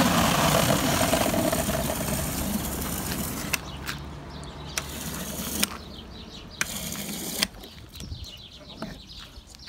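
Water running from a brass outdoor tap into a plastic water bottle: a steady gushing rush for about five and a half seconds that stops abruptly, then a second, shorter rush about a second later.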